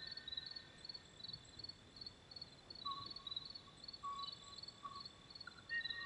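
Kauaʻi ʻōʻō singing: a few short, clear whistled notes in the second half, faint, over insects chirping steadily about three times a second.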